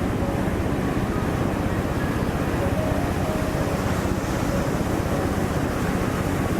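Ocean surf making a steady, low, dense roar.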